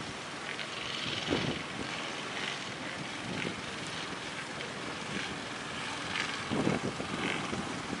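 Wind buffeting the microphone over the steady hiss of breaking surf, with two stronger gusts, about a second in and near the end.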